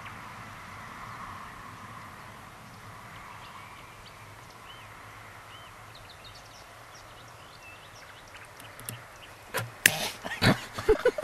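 Quiet outdoor background with scattered faint, short high chirps, then a run of loud, sharp knocks and rustles in the last two seconds.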